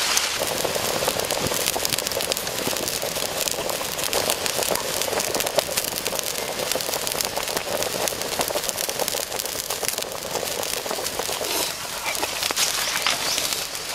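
Pig intestines boiling with coconut in a pot: a steady, dense crackle of bubbling and popping.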